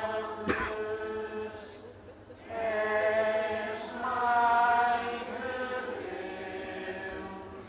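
Procession participants singing a hymn together, in phrases of held notes a second or two long with short breaks between. A sharp click sounds about half a second in.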